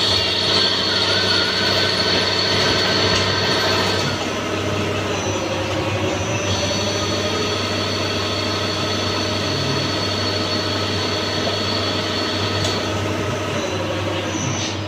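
Wintec TC15 CNC lathe running steadily: a whine of several steady tones over a low hum. About four seconds in, a high tone drops away and it gets a little quieter.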